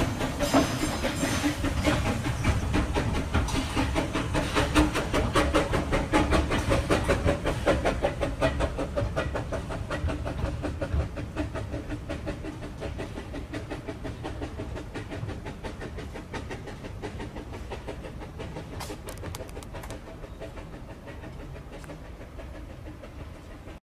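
Narrow-gauge 0-4-2 saddle-tank steam locomotive Edward Thomas chuffing steadily as it pushes its empty carriages away, with the rumble of the train over the track. The sound fades gradually as the train draws away, then cuts off abruptly near the end.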